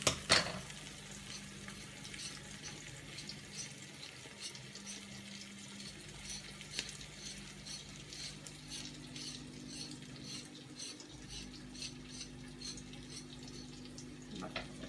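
Scrambled eggs and yellowfoot mushrooms frying in a pan, a soft steady sizzle with small crackles, over a steady low hum. There is one sharp click just at the start.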